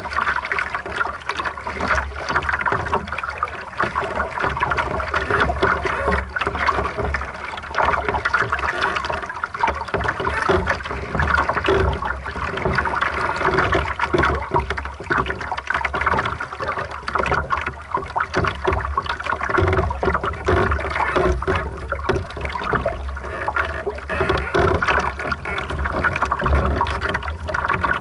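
Water rushing and splashing against the hull of a small sailing dinghy under way, a continuous wash full of small splashes, with a steady low rumble underneath.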